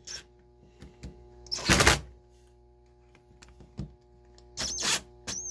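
Small cordless screwdriver whirring in short bursts as it drives screws into a reciprocating saw's aluminum housing. The longest burst comes a little under two seconds in, and there are quicker ones near the end.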